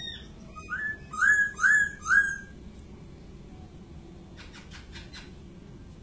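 Caged laughingthrush (poksay) singing: a short note, then four loud, clear whistled notes in quick succession about a second in.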